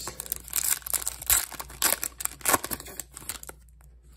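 The wrapper of a 2021 Absolute Football blaster pack being torn open and crinkled by hand: a run of sharp crinkling rips that dies away about three and a half seconds in.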